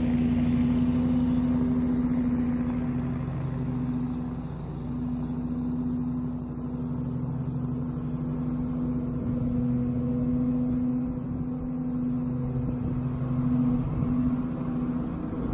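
Grasshopper 125 zero-turn mower running steadily under load with its PowerVac leaf bagger, driven by its 25 hp Kohler engine: a steady engine hum whose level dips slightly now and then.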